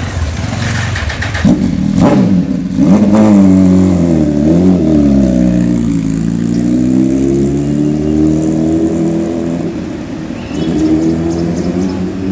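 Suzuki GSX-R1000R inline-four sport bike with an Akrapovic full-system exhaust, revved sharply a couple of times and then pulled away and ridden off, its engine note rising and falling as it goes through the gears.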